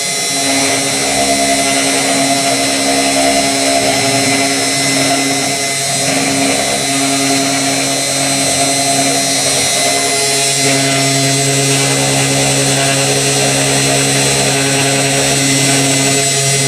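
3018 Pro desktop CNC router engraving a thin board: its small DC spindle motor runs at full speed with a steady high whine. Under it the stepper motors hum in tones that shift and change as the axes drive the V-bit through the cut, most clearly about 6 and 10 seconds in.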